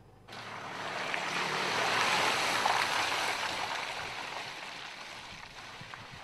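Tyres of a Mercedes-Benz GLK crunching and rolling over loose gravel and dirt as the SUV crawls slowly downhill. The noise swells over a couple of seconds, then fades as the vehicle passes.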